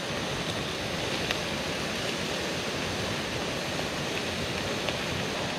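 Steady rushing noise of running water from a stream, blended with a lit gas camping stove's burner, with a few faint clicks of a knife cutting mushrooms over a cooking pot.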